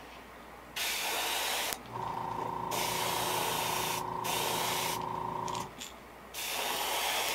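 Airbrush spraying paint onto a small crankbait lure in four hissing bursts of about a second each. A small air compressor's motor hums steadily under the middle few seconds, then stops.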